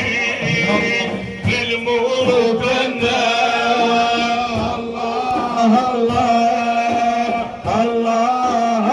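Male voices chanting a Sufi dhikr, a lead singer's long held melodic lines over the group, with a regular beat underneath.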